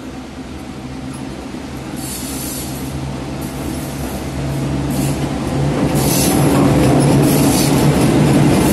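Victorian Railways diesel locomotives hauling a passenger train, approaching and passing close: a steady low engine drone grows louder, with rising wheel-and-rail noise and brief hissing squeals from the wheels.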